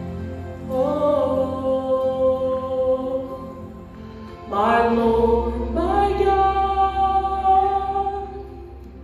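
A young man singing a Samoan hymn solo into a microphone: two long, slow phrases of held notes, the first starting about a second in and the second about halfway through, fading near the end.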